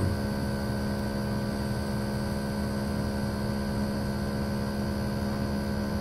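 Outdoor unit of a 9,000 BTU inverter ductless mini split running full tilt: a steady hum with a strong low tone and several fainter higher tones over a hiss.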